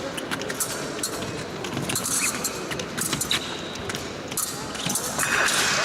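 Épée blades clicking and clinking against each other and scraping feet on the piste, over the murmur of a large fencing hall. About five seconds in a louder rush of noise rises, with a thin steady tone.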